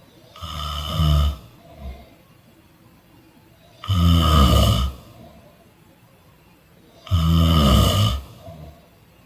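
A person snoring: three loud snores about three seconds apart, each lasting about a second, with a short softer sound after the first and the last.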